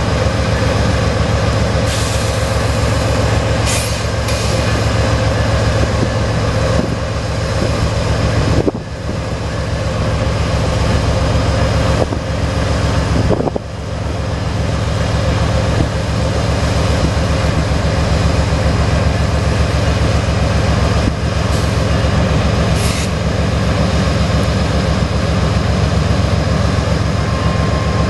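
CSX freight train's diesel locomotives running slowly past, a steady heavy engine drone with a throbbing low rhythm. Short high hisses come a few times, about two and four seconds in and again past twenty seconds.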